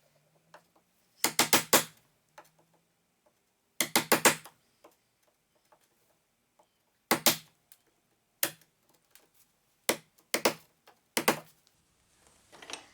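Hammer tapping a chisel in short bursts of two to four quick, hard strikes, paring back wood that sticks out at the door jamb.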